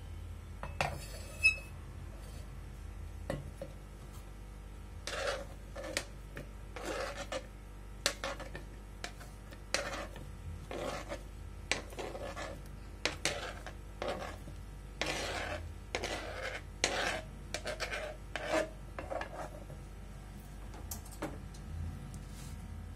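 Chopped plum pieces being scraped across a plastic cutting board and off its edge into a stainless steel grinder jar, in a long run of short scraping strokes through the middle of the stretch. A sharp knock comes about a second and a half in.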